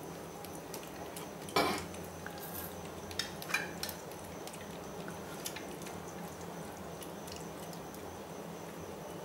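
Metal spoon clinking against an opened tin of wet cat food and a stainless steel dish as the food is scooped out: one sharper clink about one and a half seconds in, a few lighter taps around three to four seconds, then scattered faint ticks. A faint steady high whine runs underneath.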